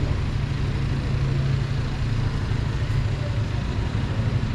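A vehicle engine idling close by, a steady low hum over street traffic noise.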